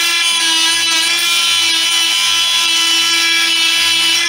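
Corded oscillating multi-tool running steadily at full speed with a high, even whine as its narrow blade cuts a hinge slot into the wooden tailplane.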